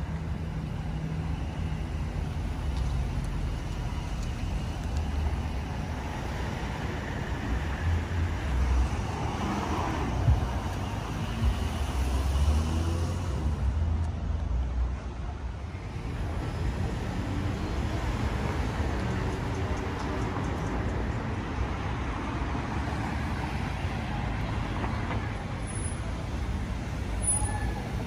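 City street traffic: cars driving past with a steady rumble of engines and tyres, a little louder for a few seconds about ten seconds in.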